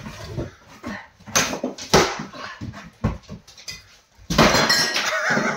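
Sledgehammer blows smashing into a mobile home's thin interior wall panels and kitchen cabinetry: a few sharp bangs about a second apart, then a longer crash of breaking panels and falling debris about four seconds in.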